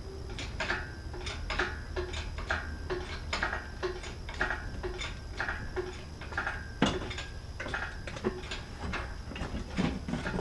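Metal hand tools working on engine parts: a steady run of sharp metallic clicks, about two a second, each with a brief ring, and a few louder clanks about seven seconds in and near the end.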